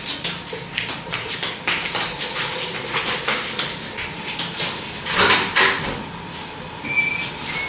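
Repeated light clattering and knocking of objects being handled, loudest about two-thirds of the way in, with a brief thin high whine near the end.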